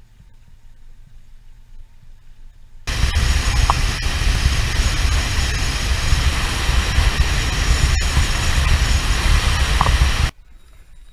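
A boat running at speed: wind rushing over the microphone over a low engine rumble. The noise starts suddenly about three seconds in and cuts off sharply near the end.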